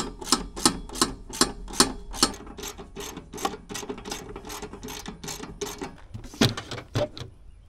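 Ratchet wrench clicking in short, even strokes, about three a second, as a bolt is turned. The clicks grow fainter after about two seconds and stop near six seconds, followed by two thumps near the end.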